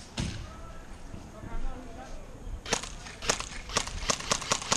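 Airsoft guns firing in a rapid string of sharp snapping shots, about five or six a second, starting a little past halfway through.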